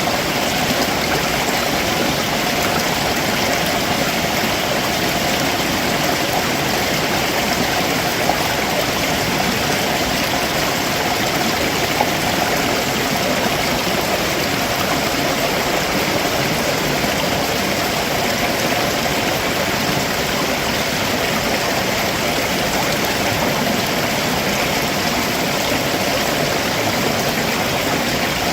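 A rocky stream flowing below a waterfall, water running over rocks in a steady, unbroken rush.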